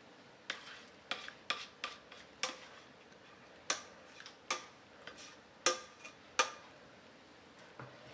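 A spatula knocking and scraping against a stainless-steel frying pan as leek fondue is scraped out of it: about ten sharp, irregular knocks, some leaving a brief metallic ring.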